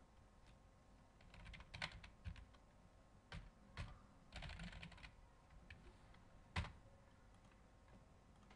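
Computer keyboard typing, faint: a few quick bursts of keystrokes, then a single louder click about six and a half seconds in.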